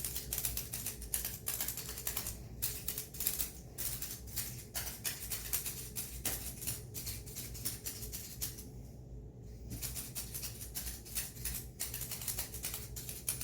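Rapid, irregular clicking from a handheld non-piercing (electrical) acupuncture device being worked over the patient's back, with a brief pause about nine seconds in, over a low steady hum.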